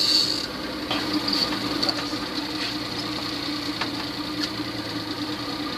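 Boat engine running steadily at low speed, a continuous even hum with faint ticks over it.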